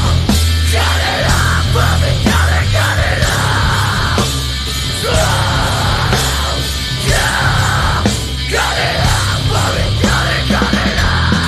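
Loud live post-hardcore rock band playing with heavy distorted guitars, bass and drums, with a screamed vocal that comes in short rasping phrases between brief breaks.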